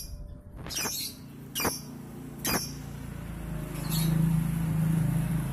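Three short, shrill lovebird chirps about a second apart, then a steady low hum comes in about halfway through and keeps on.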